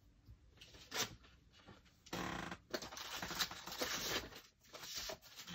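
Paper being handled: a sharp tap about a second in, then rustling and crinkling in short spells from about two seconds in.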